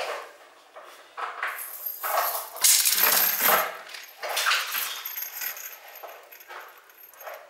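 Metal chain-strap links clinking and jingling in irregular bursts as the chain is handled, loudest a little before the middle.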